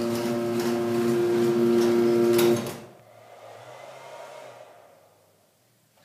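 Sears Craftsman 139.53415SR chain-drive garage door opener running, a steady motor hum with rattling from the drive, then stopping abruptly about two and a half seconds in. A faint low hum carries on briefly after it stops.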